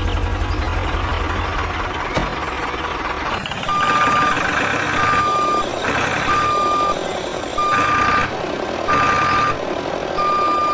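A vehicle's engine runs low at first. Then, from about three and a half seconds in, its reversing alarm beeps steadily at one pitch, about once a second, six times.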